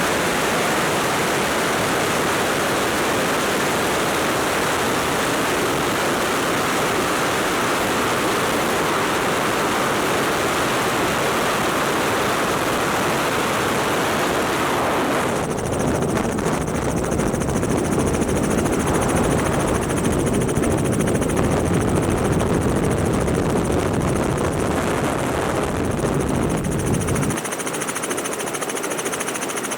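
Robinson R44 helicopter in flight with its doors off: steady rotor and engine noise buried in heavy wind rush. About halfway through the rush changes character, the hiss dropping away and a deeper, slightly louder rumble taking over.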